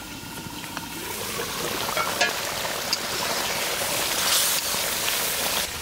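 Coconut-milk curry gravy boiling in a covered pot, a steady bubbling hiss that grows a little louder, with a few faint clicks.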